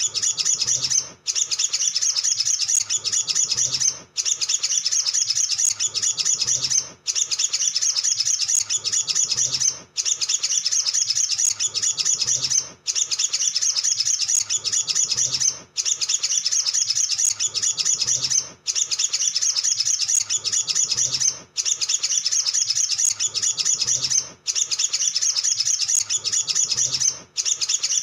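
Male olive-backed sunbird singing a fast, high-pitched chattering song. The same roughly three-second phrase repeats over and over, each with a brief gap before the next.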